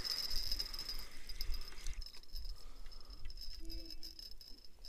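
Spinning reel being wound in, its rotor giving a steady high whirr with fine rapid ticks, as a hooked crucian carp is reeled to the bank; the winding stops about two seconds in.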